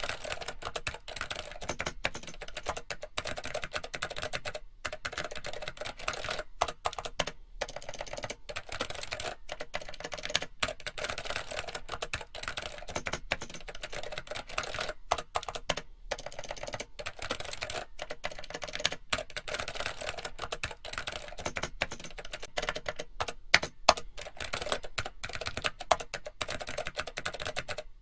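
Fast, continuous typing on a computer keyboard, a dense run of key clicks broken by brief pauses every few seconds, with a few harder keystrokes near the end.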